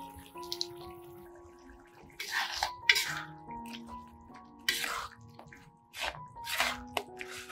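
A spatula stirring a wet sauce in a metal wok: a few short bursts of sloshing and scraping about two, five and six and a half seconds in. Soft background music with held notes plays throughout.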